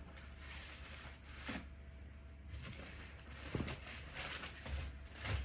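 Rustling and a few light knocks of household things being moved about by hand during a search, over a low steady hum.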